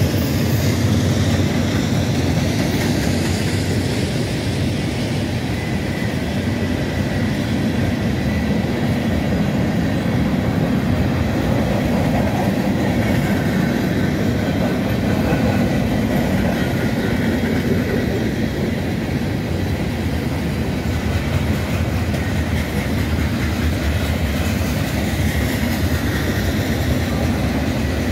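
Freight train's covered hoppers and boxcars rolling past steadily, steel wheels running on the rails.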